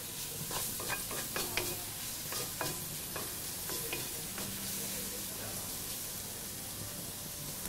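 Prawns and red pepper strips sizzling in a hot wok, stirred with a wooden spoon. The spoon clicks and scrapes against the wok over the first few seconds, then the frying goes on as a steady hiss.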